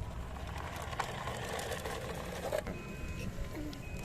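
Small electric motors and gears of a radio-controlled toy construction vehicle whirring, with a click about a second in and another about two and a half seconds in. After that come two short high electronic beeps.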